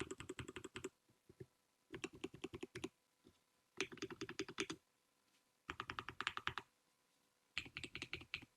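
KBD67 Lite R3 custom mechanical keyboard typed on in five quick bursts of about a second each with short pauses between: lubed Durock T1 tactile switches on a polycarbonate plate with foam-dampened case, under doubleshot ABS keycaps, giving a dense rapid clacking.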